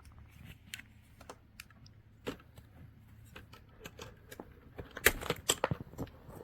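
Scattered small sharp clicks and light clatter from a mechanical keyboard's keycaps being worked with a stainless steel keycap puller. A burst of several louder clicks comes about five seconds in.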